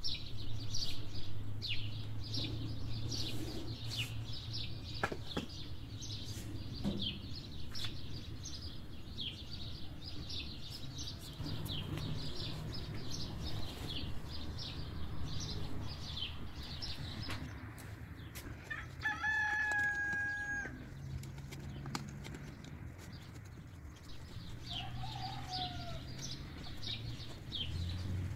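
Farmyard birds: small birds chirp over and over through the whole stretch, and about two-thirds of the way in a rooster crows once in a single held call.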